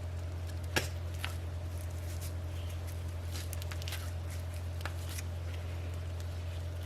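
Steady low electrical hum under soft squishy handling of raw sausage meat and casing, with scattered light clicks and one sharper click about a second in.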